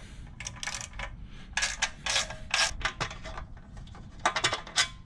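Small socket ratchet clicking in short irregular runs as a bolt on a Predator 212 engine is backed off, with light metal clinks as the loosened bolt is handled.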